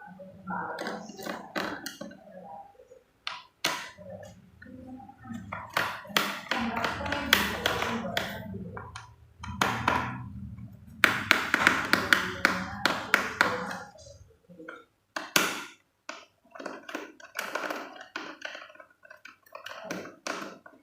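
Screwdriver loosening the bottom-cover screws of a Lenovo ThinkPad X1 Yoga laptop one after another: irregular clicks, scrapes and taps of the tool and hands on the case.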